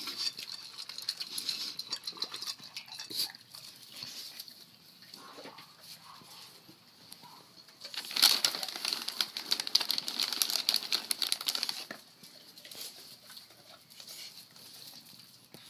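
A small dog lapping at a steel water bowl with rapid wet clicks. About eight seconds in, a plastic cereal bag crinkles loudly for about four seconds.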